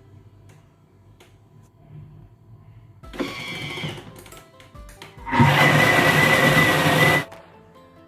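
Thermomix motor running at speed 8, its blade mixing cake batter: a short burst about three seconds in, then a louder run of about two seconds that stops abruptly. Faint background music underneath.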